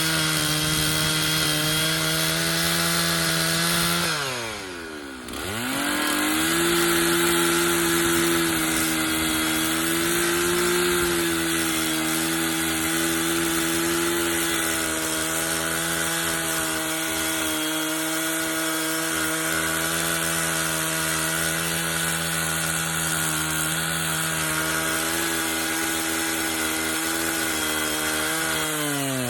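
Stihl 066 two-stroke chainsaw with a 32-inch bar running at high revs, cutting through a cottonwood log. Its engine speed drops sharply and picks back up about five seconds in, and dips again near the end.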